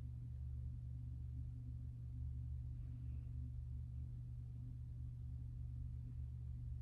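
Steady low background hum, unchanging throughout.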